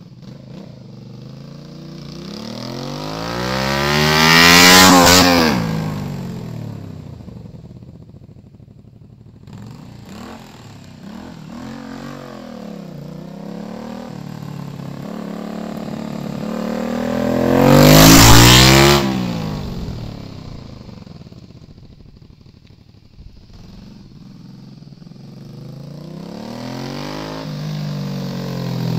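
Honda VTZ250's 90-degree V-twin with a Moriwaki Foresight slip-on muffler, riding past twice, about 5 seconds in and again about 18 seconds in, its pitch falling as it goes by. Quieter revving is heard in between, and the bike approaches again, growing louder, near the end.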